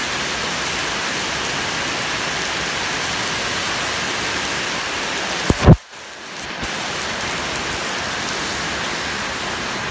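Rain falling steadily, an even hiss. A little over halfway through there is one short, loud thump, and the rain sound drops away for about a second after it before returning.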